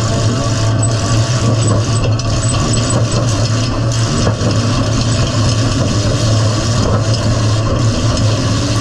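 Midsize demolition derby car's engine running loudly at a steady speed, heard from inside its gutted cabin.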